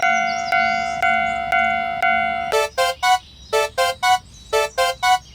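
Japanese railroad crossing's electronic alarm bell dinging about twice a second, then switching about two and a half seconds in to a rising three-note electronic chime, repeated three times.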